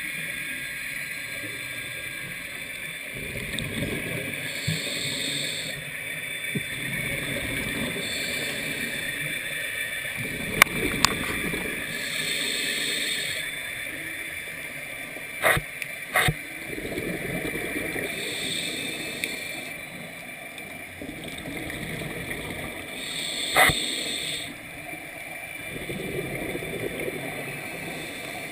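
Scuba regulator breathing heard underwater. A hiss swells with each inhale every six seconds or so, and bubbles rumble and gurgle on each exhale. A few sharp clicks are heard near the middle and again later.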